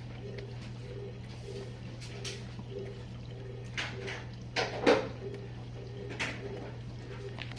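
GE Profile dishwasher running its final rinse: a steady pump-motor hum with a tone pulsing about twice a second, and water spraying and splashing inside the tub. Several louder splashes come through, the loudest about five seconds in.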